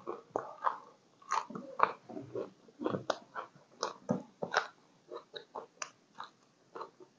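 Close-up chewing and biting with many short, irregular crunches and mouth clicks: raw ginger slices and fresh green chilies being bitten and chewed together with Isan sausage.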